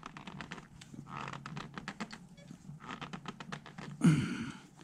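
Hands gripping and twisting a new spin-on oil filter tight on a Honda Africa Twin engine: clusters of rapid scraping clicks as the hand works round the canister, then a short strained exhale about four seconds in.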